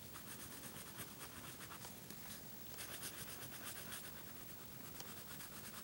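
Faint, rapid back-and-forth strokes of a colouring tool scratching on paper as an area is shaded in.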